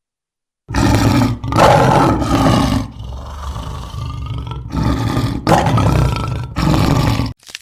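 Big cat roaring: a run of loud roars starting just under a second in, with a quieter stretch in the middle.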